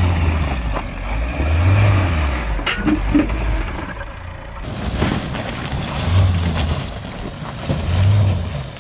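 Mahindra Thar's engine pulling at low speed as it crawls over loose rocks, swelling and easing several times, with a few short knocks of stones under the tyres.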